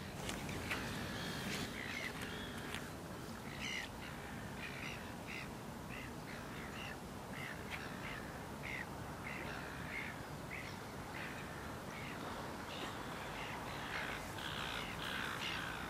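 Birds calling: a long run of short, harsh caw-like calls, about one every half second, over a steady background hiss.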